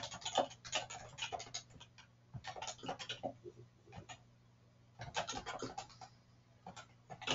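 Typing on a computer keyboard: quick key clicks in several bursts with short pauses between them.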